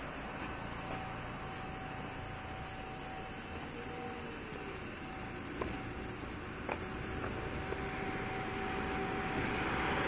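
Summer cicadas buzzing steadily in a high, even drone, with a faint steady hum underneath and a lower tone that drops in pitch about halfway through.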